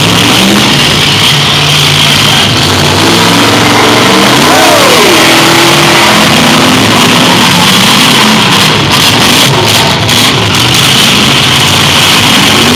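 Engines of several full-size demolition derby cars revving and running hard together, their pitch rising and falling over a steady din.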